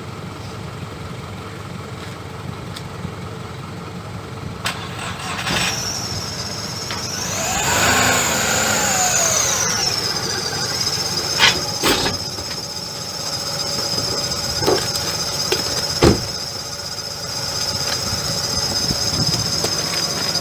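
Isuzu recovery truck's diesel engine running while its hydraulics are worked. About five seconds in, a high whine from the hydraulic system starts, rises, then settles into a steady pitch, with a few sharp clicks and knocks. This is a pressure test of a freshly tig-welded steel hydraulic hose.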